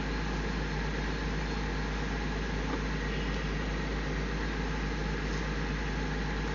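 Excavator diesel engine idling with a steady hum, while the hydraulic breaker line on its boom is being fitted.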